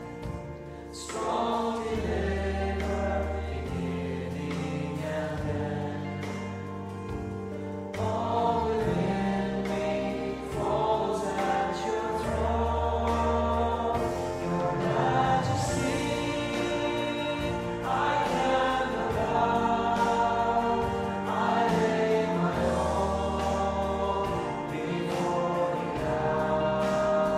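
Congregation singing a slow worship song together, over instrumental accompaniment that holds long bass notes.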